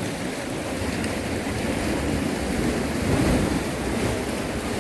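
Sea waves washing against a rocky shore, with wind on the microphone; the noise swells about three seconds in.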